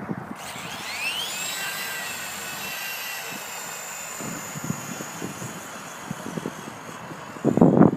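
Electric motor and rotor whine of a WLToys V913 RC helicopter, rising in pitch about a second in and then holding steady, over wind rushing on the microphone. A loud buffet of wind on the microphone comes near the end.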